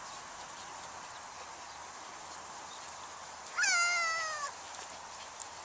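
A young child's high-pitched squeal, a single call just under a second long that rises briefly and then falls, heard over a steady background hiss.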